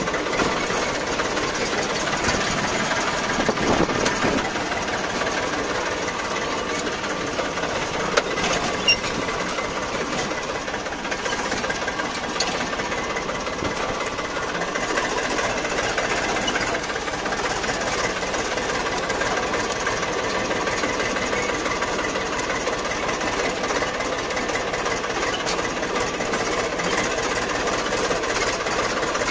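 Farm tractor's diesel engine running steadily as the tractor is driven, with a fast, even diesel clatter. Two brief sharp knocks stand out about eight and nine seconds in.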